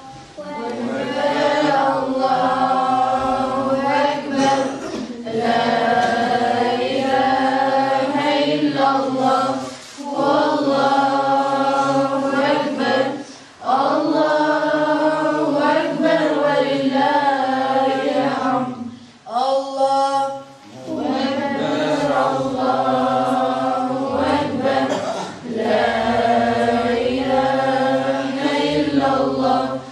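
A group of voices chanting an Islamic devotional chant together in unison, in long sung phrases of several seconds with short breaks for breath between them.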